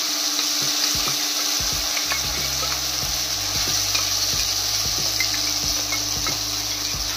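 Hot oil sizzling in a steel kadhai as bay leaves and cumin seeds fry for a tadka: a steady hiss with frequent small pops and clicks.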